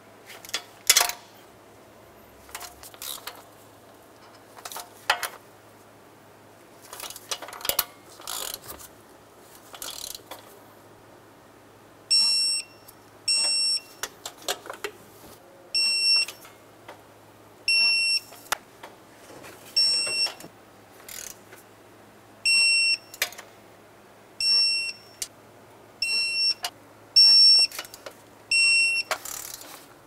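Torque wrench tightening the intake nuts and bolts to 13 foot-pounds: bouts of ratchet clicking, then from about twelve seconds in a short beep on each fastener, about a dozen beeps a second or two apart, as each one reaches the set torque.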